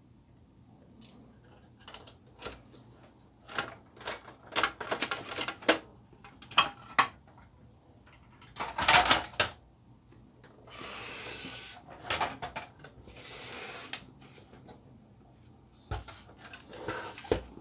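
Clicks, knocks and rattles of a laser printer's plastic covers and metal frame being handled and taken apart by hand, with a loud clatter of parts just before the middle. Two rubbing, scraping noises of about a second each follow, as covers slide off, then a few more knocks near the end.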